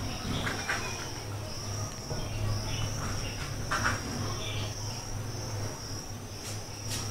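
Steady high-pitched chirring over a low hum, with a few faint light taps and rustles as cut vegetable pieces are handled on a plastic cutting board.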